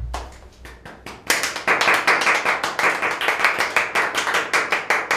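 Hand clapping by a few people: a few scattered claps at first, then quick, steady clapping from about a second in.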